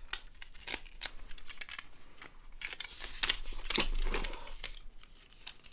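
Daiichiseiko Nogiscale 125 plastic fish-measuring tape handled and its tape pulled out of the case: a string of small plastic clicks and rustles, busiest around the middle.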